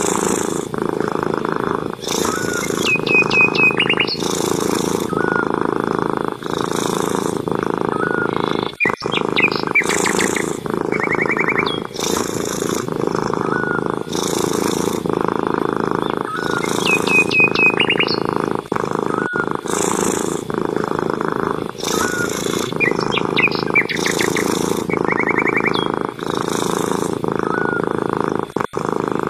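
Domestic cat purring loudly and steadily, the purr breaking about every two seconds with each breath. Short bird chirps and trills sound every several seconds.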